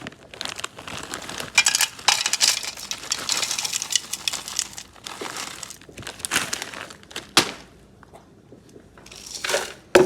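Fresh spinach leaves crinkling and rustling in irregular spells as a cup of them is handled and added to a blender, with a few sharp ticks among them.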